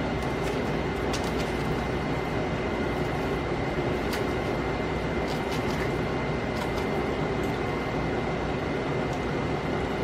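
Steady even background hum with a faint steady high whine, with a few light clicks of a metal fork against a paper plate as pancakes are cut.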